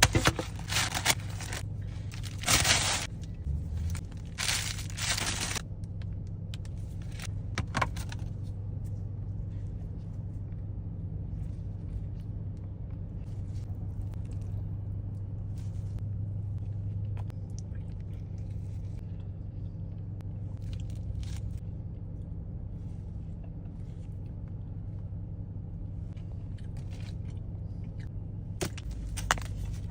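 Food wrapping paper crinkling and tearing in several loud bursts over the first few seconds, then a few faint rustles and clicks over a steady low hum, with a short burst of crinkling near the end.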